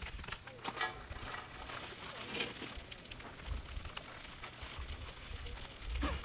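Plastic food pouches crinkling and rustling as they are handled, with scattered small clicks, then kimchi fried rice tipped from a pouch into a pan on a portable stove.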